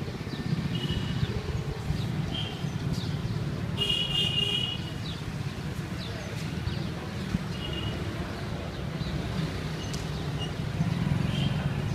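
Outdoor urban ambience: a steady low rumble with several short, high-pitched tones scattered through it, the loudest about four seconds in.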